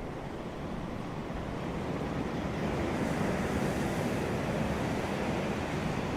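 Sea waves washing onto a beach, a steady surf wash that swells slightly after a couple of seconds, with some wind on the microphone.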